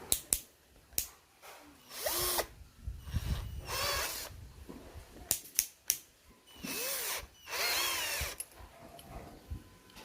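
AOTUO cordless drill run in about four short bursts, its motor whine rising and falling in pitch with each run, with sharp clicks in between.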